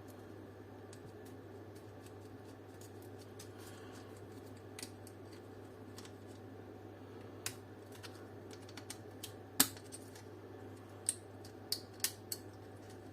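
Plastic clicks and snaps as the dome light's housing and tabs are worked loose and come apart, a scattered run of sharp clicks in the second half with one much louder snap, over a steady low hum.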